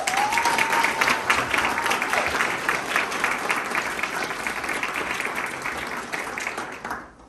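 Audience applauding, with one long, high held note over the clapping in the first two seconds. The applause dies away near the end.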